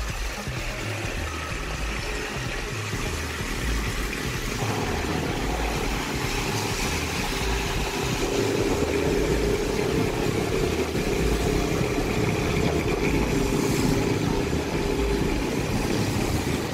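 A motor vehicle's engine running as it travels along a wet road, over a steady hiss of wet tyres and rain. A steady engine hum comes in about halfway through.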